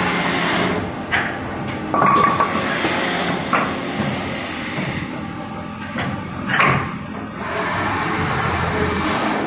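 Automatic-feed CNC wood lathe: the cutter on the spinning blank stops about a second in, then the loading mechanism clunks and knocks several times as the turned piece is released and a new blank is fed in and clamped, and cutting starts again near the end.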